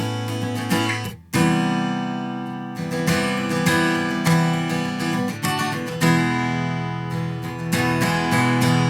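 Strummed acoustic guitar played through a multichannel delay plugin, its repeats echoing, with the plugin's air mode rolling off the top end. The playing breaks off briefly a little over a second in, then carries on.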